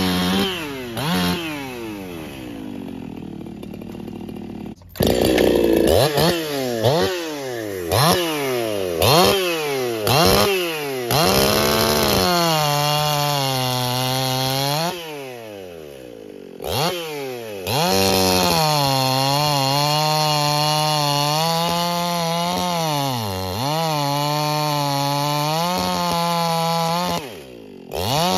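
Brisco-built Echo 4910 two-stroke chainsaw with semi-chisel chain, blipped through a string of quick revs with a short idle. It then runs at full throttle through a log, its pitch sagging under load and recovering, and drops back to idle briefly about two-thirds of the way in and again near the end.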